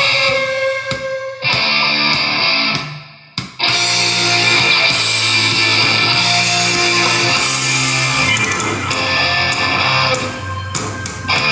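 Rock song with electric guitar, played through an Infinity One portable Bluetooth speaker as a listening test. The music drops away for a moment about three seconds in, then comes straight back at full level.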